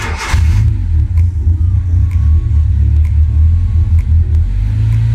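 1999 Honda Civic VTi's 1.6-litre VTEC four-cylinder engine starting, catching at once and settling into a steady idle heard inside the cabin. The engine is running on a freshly installed aftermarket idle air control valve, and its idle climbs a little near the end.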